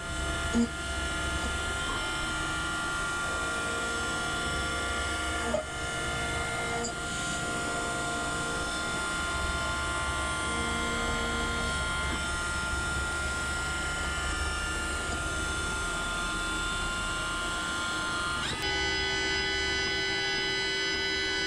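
CNC mill-turn machine milling a pocket in a steel anvil with an end mill: a steady spindle whine of several held tones over a low cutting rumble that swells and drops every few seconds. About three seconds before the end the whine shifts abruptly to a new set of tones, as the spindle speed or the cut changes.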